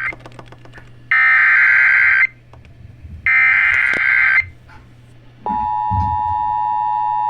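An Emergency Alert System SAME header plays as two harsh, buzzy data bursts, each about a second long. About five and a half seconds in, the steady two-tone EAS attention signal begins. Together they herald a broadcast severe thunderstorm warning.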